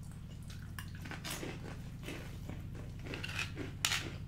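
Close-up crunching and chewing of Flamin' Hot Cheetos, with a few irregular crisp crunches, the sharpest near the end, over a steady low hum.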